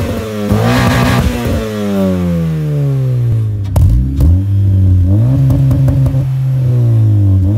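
A 9th-gen Honda Civic Si's 2.4-litre K24 four-cylinder, breathing through an aftermarket downpipe and cat-back exhaust, is revved in place. The revs jump quickly, fall back slowly with a few sharp pops around the middle, then climb again and hold steady with a loud, raspy exhaust note.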